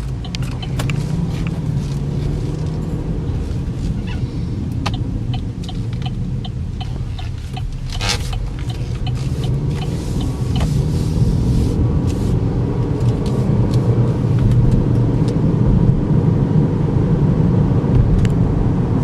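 Interior noise of a 2012 Chevy Equinox on the move: a steady low rumble of its 2.4-litre four-cylinder engine and the tyres on the road, with scattered small clicks and knocks, growing a little louder toward the end.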